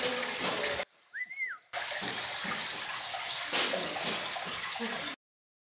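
A steady rushing noise, broken about a second in by a short quieter stretch with a single rising-then-falling whistle. The sound cuts off suddenly near the end.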